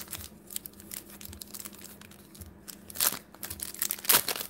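Rustling and crinkling of trading cards and their paper packaging being handled, a string of short scrapes and clicks with louder rustles about three seconds in and near the end.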